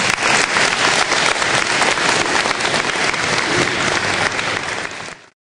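Audience applauding, many hands clapping together; the applause cuts off suddenly about five seconds in.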